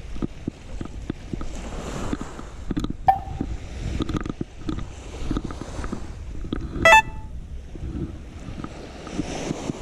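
Wind buffeting the microphone and rod-handling and walking noise on a sandy surf beach, with two short, sharp pitched pings about three and seven seconds in, the second one loud.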